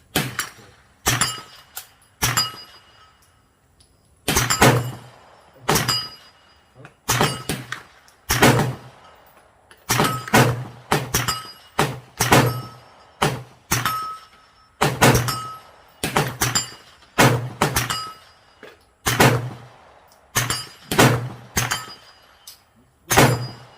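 Suppressed CZ Scorpion carbine firing about twenty single shots at an uneven pace, each a sharp, muffled report with a brief ring after it.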